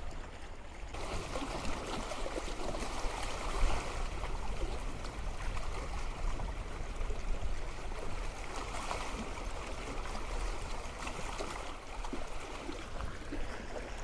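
Sea water lapping and washing against a stone pier and shoreline boulders, a steady wash that starts about a second in, with wind rumbling on the microphone.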